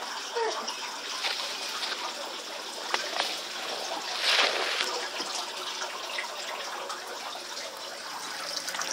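Water trickling into an aquarium from a hose during a water change, with a louder splash about four seconds in.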